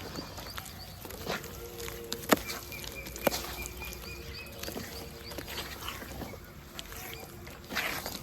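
Dry red dirt crumbling and being dipped in water, with small ticks throughout and two sharp cracks about two and three seconds in.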